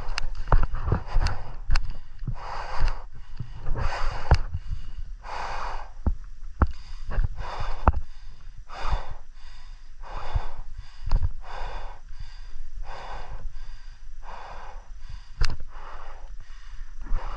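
Heavy breathing close to the microphone, about one breath a second, with scattered sharp knocks and clicks mixed in.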